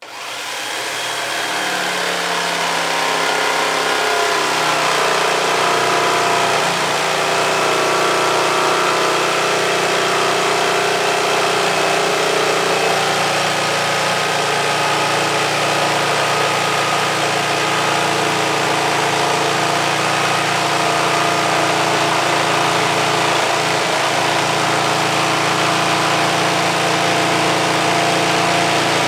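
Corded electric jigsaw starting up and running steadily, its reciprocating blade cutting through a wooden board.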